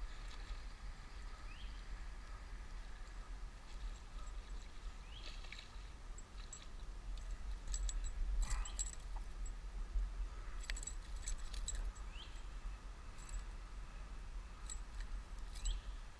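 Light metallic clicks and jingling in a few short clusters, over a steady low rumble.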